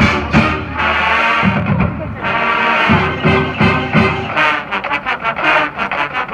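Marching band playing its field show: full brass chords held over low drum hits, breaking into short accented notes in the last couple of seconds.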